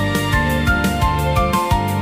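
Background music: a pop song's instrumental passage with held melodic notes over a steady beat of about three beats a second.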